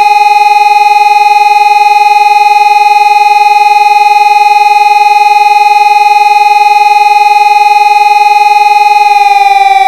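Helin HES 600 civil-defence siren holding a steady two-pitch wail at full pitch, then starting to wind down about nine seconds in.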